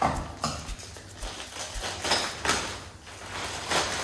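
A clear plastic packaging bag crinkling as it is handled and cut open with kitchen scissors, in several short rustling bursts.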